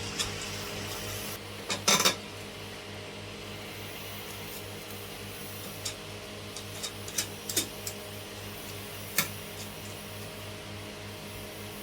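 Scattered light clicks and clinks of small tools and hardware being handled, a few at a time, over a steady low hum.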